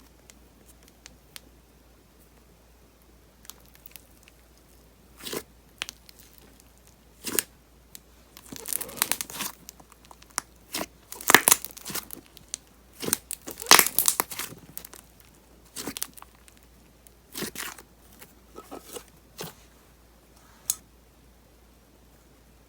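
Thick clay slime being squeezed, stretched and folded by hand, giving scattered sharp crackling pops of air bubbles bursting in it. The pops come in denser runs in the middle and are loudest about 11 and 14 seconds in.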